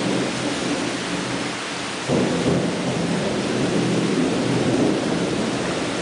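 Heavy rain pouring on broad leaves and palm fronds, a steady dense hiss that swells abruptly to a louder, fuller downpour about two seconds in.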